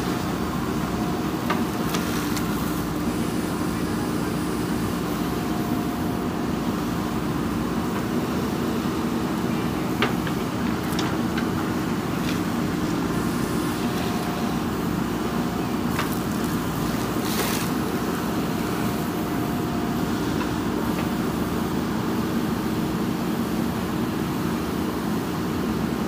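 JCB 3DX backhoe loader's diesel engine running steadily under load while the backhoe digs soil. Brief higher whines come now and then, with a few sharp knocks.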